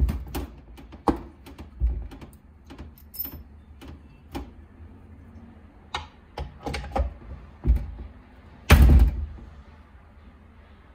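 Metal parts of a Honda Dio AF18 scooter gearbox being handled: irregular clicks and knocks as a transmission gear is set into the aluminium crankcase and the gearbox cover is fitted over it, with one heavier thump near the end.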